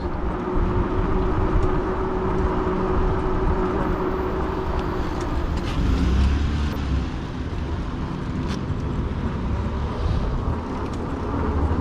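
Riding noise of an e-bike on pavement: wind rumble on the microphone under a steady hum, which shifts to a lower pitch about six seconds in.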